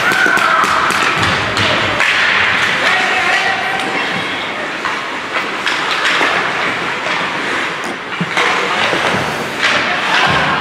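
Ice hockey play in an indoor rink: skates scraping on the ice and a run of stick and puck knocks and thuds against the boards, over a steady wash of voices from players and spectators.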